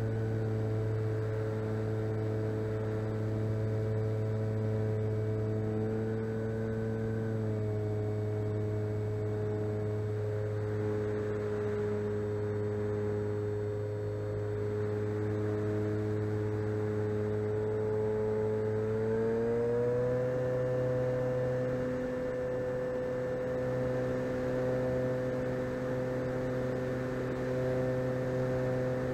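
Electric motor and propeller of an RC plane whining steadily in flight. The pitch drops slightly about seven seconds in, then climbs as the motor speeds up about two-thirds of the way through and holds at the higher note.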